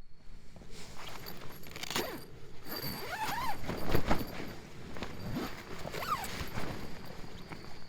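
Tent fabric and camping gear being handled while a tent is pitched: irregular rustling and scraping, with a few short sliding squeaks.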